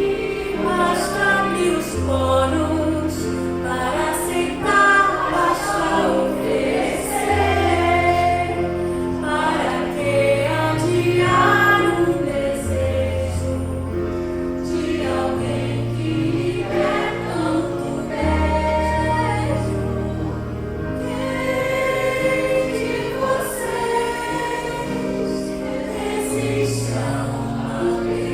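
Music with sung voices over a slow bass line, the low notes held and changing about every two seconds.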